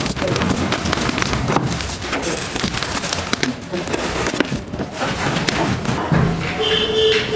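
Bubble wrap crackling and cardboard rustling and scraping as a plastic air cooler is slid out of its carton, with scattered knocks and thuds. A short held high tone comes in near the end.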